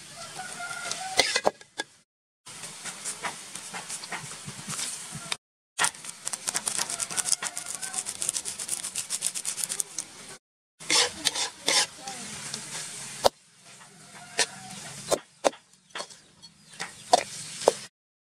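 A metal spoon scraping and clinking against a steel wok as yellow noodles are stirred, over a steady hiss. The sound stops for short silent gaps a few times.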